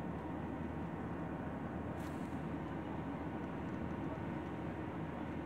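Steady low drone of jet engines and airflow heard inside an airliner cabin in flight, with a faint click about two seconds in.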